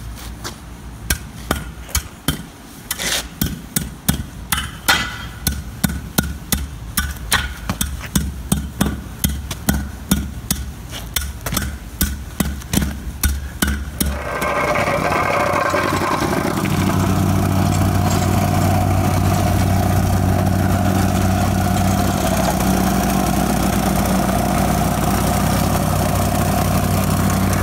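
Hand tamper stamping down a fresh asphalt patch in a rapid, even series of thumps. About halfway through, a plate compactor's engine comes in and steps up a couple of seconds later to run steadily at full speed as it compacts the patch.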